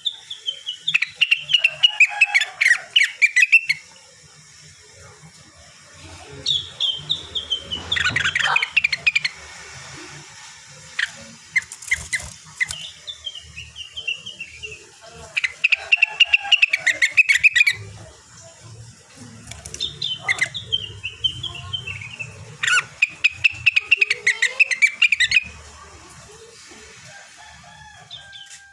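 Rengganis (cucak wilis) songbird singing in bouts of quick, chattering warbled phrases with pauses between, a moulting bird still in song.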